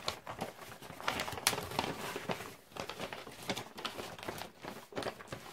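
Paper and thin cardboard packaging rustling and crinkling as a mail box is opened by hand, with irregular small crackles and taps.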